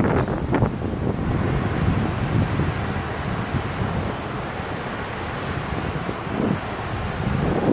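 Wind buffeting the microphone over a steady low rushing noise.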